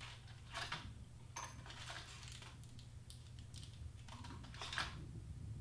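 Faint, scattered clicks and rustles of small plastic parts being handled while a quartz clock movement is fitted, over a low steady hum.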